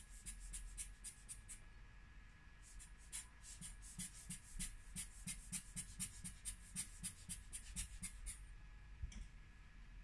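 Quick, rhythmic rubbing strokes on a phone's tempered glass screen protector, about three or four a second. A short run comes at the start, then a longer one from about three seconds in until near the end.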